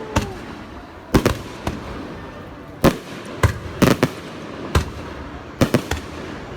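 Fireworks bursting overhead: a dozen or so sharp bangs at irregular intervals, some in quick pairs and triplets.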